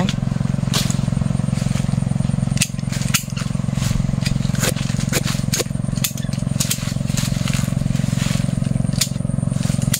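A small engine running steadily with a low drone, and sharp clicks scattered through it from hand pruning shears snipping jackfruit twigs.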